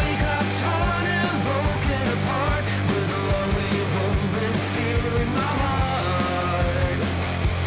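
Background rock music with guitar, a steady beat and what may be a singing voice.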